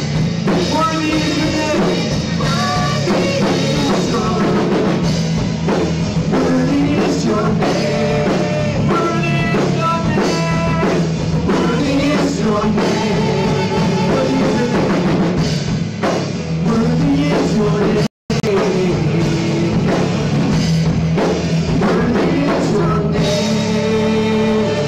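Live church worship band playing, with several singers over keyboard and guitar. The sound cuts out completely for an instant about two-thirds of the way through.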